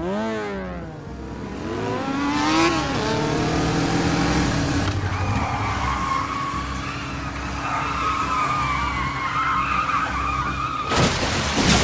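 Motorcycle engine revving hard. Its pitch sweeps up and down over the first few seconds, then holds high and steady at speed. A sharp burst of noise comes near the end.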